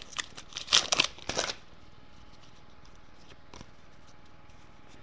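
Foil trading-card pack wrapper crinkling and rustling for about a second and a half as the cards are pulled out of it, then quiet handling of the card stack with one faint tap.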